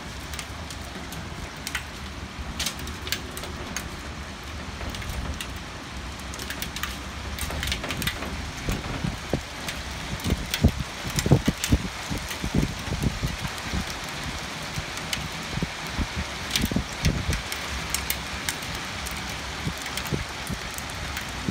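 Hailstorm: hailstones pelting hard surfaces, an irregular patter of sharp knocks over a steady rain-like hiss. The impacts come thicker and louder from about halfway through.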